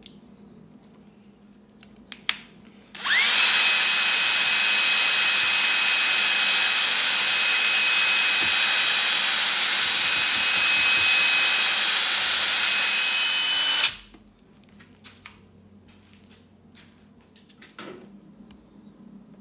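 Cordless drill spinning a paddle mixer to blend two-part epoxy resin and hardener. It is preceded by a couple of short knocks, spins up quickly, runs at a steady speed with a high motor whine for about eleven seconds, then stops abruptly.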